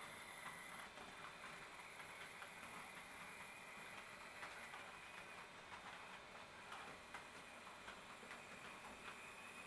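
HO-scale model train rolling slowly along the track, its wheels giving faint, irregular clicks over the rail joints.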